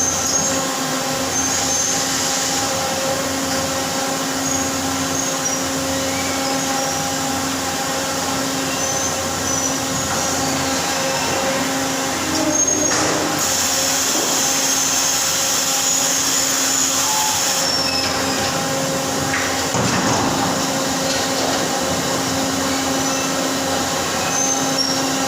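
CNC shop machinery running steadily: a constant hum with a steady tone, scattered short high squeals, and a high hiss that starts about thirteen seconds in and stops about four seconds later.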